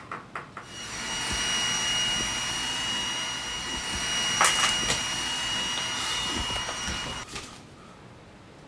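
Robot vacuum cleaner running: a steady whirring with a thin high whine, starting after a few clicks and cutting off abruptly about seven seconds in. A couple of sharp clicks come about halfway through.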